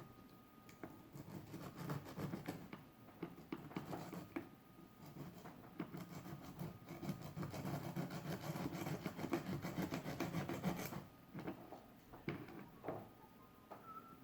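Sandpaper rubbing in quick, irregular short strokes, scrubbing the metal contacts of a Teddy Ruxpin's tape player clean. The rubbing stops about eleven seconds in.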